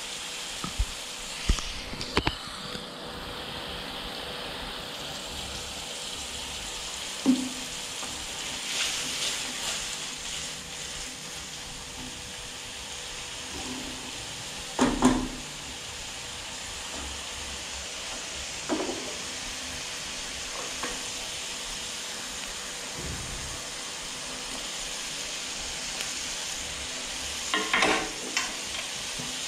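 Food sizzling in a hot wok, a steady hiss, with a spatula knocking and scraping against the pan now and then as it is stirred.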